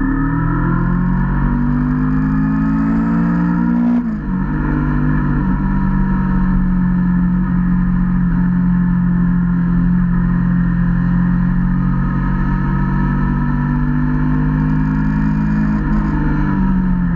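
Motorcycle engine under way on the road, its pitch rising as it accelerates, then dropping abruptly about four seconds in at a gear change. It holds a steady pitch and falls off near the end as it slows, with wind noise on the microphone underneath.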